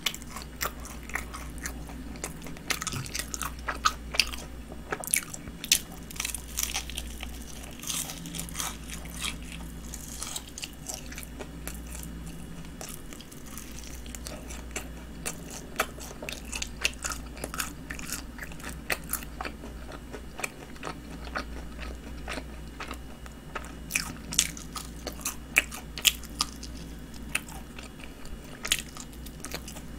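Biting and chewing glazed fried chicken: irregular crisp crunches and crackles of the coating, scattered all through, with wet chewing between them.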